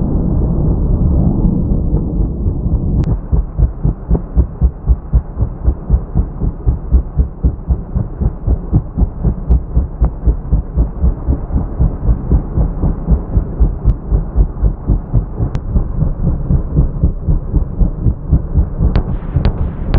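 Helicopter rotor throbbing in a steady low pulse, about three beats a second, after a low rumble dies away at the start. A few sharp cracks come near the end.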